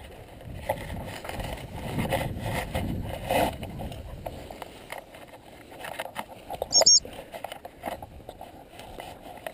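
Tall dry grass and weeds swishing and crunching against legs as someone walks through them. About seven seconds in, there is a short, high double pip of a dog-training whistle.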